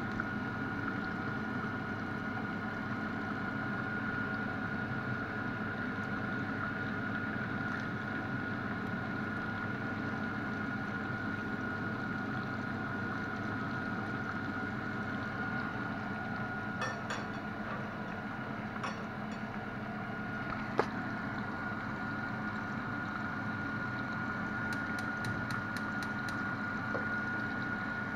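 Breaded chicken pieces frying in hot oil in a pan, a steady sizzle, with a few sharp clicks of a metal fork against the pan.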